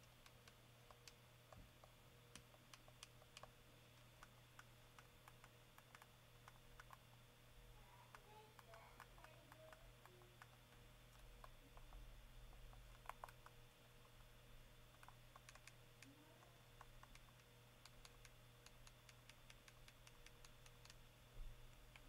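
Faint, irregular clicking of game controller buttons being pressed over and over, picked up from behind a Blue Yeti X USB microphone, over a low steady hum.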